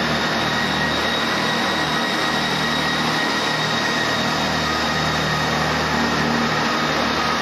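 First Great Western Networker Turbo diesel multiple unit running past, its underfloor diesel engines giving a steady drone with a high whine on top, along with wheel and track noise.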